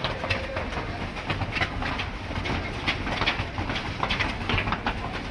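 Footsteps of a group running fast up concrete stairs: a dense, irregular patter of shoe slaps.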